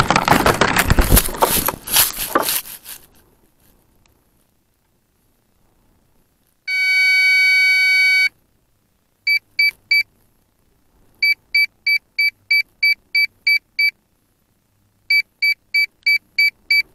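Wind rush and knocks as the rocket comes down into the grass, fading out within about three seconds. Then an electronic beeper on board sounds one long tone followed by three groups of short beeps (three, about ten, then seven). This is the pattern in which a model-rocket altimeter reports its peak altitude after landing.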